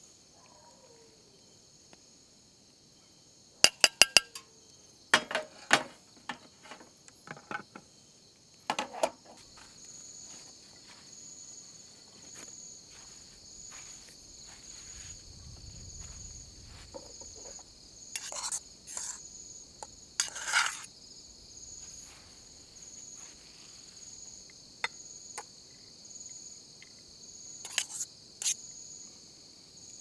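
Crickets chirping steadily through the night, with scattered sharp clinks and knocks of utensils against dishes; the loudest is a quick cluster of four clinks about four seconds in, and a few more come near the middle and the end.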